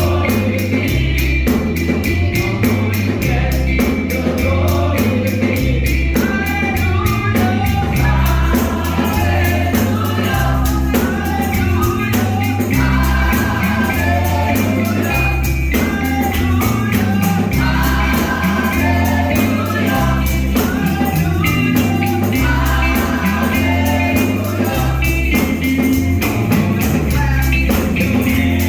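Gospel music: a choir singing over a band, with a bass line and a steady beat.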